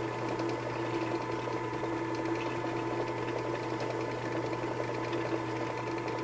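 Small benchtop drill press running steadily, its motor holding an even hum while it drills the rivets out of a lawn tractor starter solenoid.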